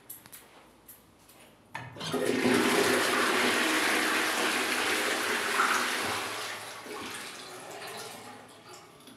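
Wall-hung toilet with a concealed cistern being flushed from its chrome push-plate. A click comes about two seconds in, then a loud rush of water that tapers off over the last few seconds.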